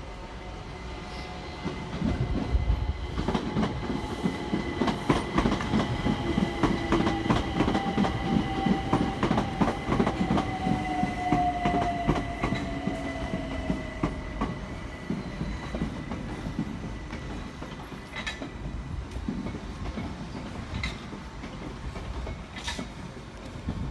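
An electric multiple-unit train, a London Overground Class 378, running along the platform. Its wheels click rapidly over the rail joints, and a high whine falls in pitch in the middle of the pass. Fainter, slower wheel clicks follow near the end as a London Underground train moves alongside.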